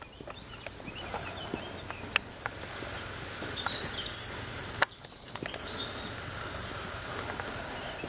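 Steady outdoor background noise with scattered faint high chirps and two sharp clicks, about two and five seconds in. The E57 siren is not sounding.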